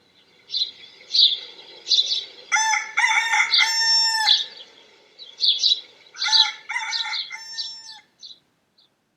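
A rooster crowing twice, each crow lasting nearly two seconds, with small birds chirping around it.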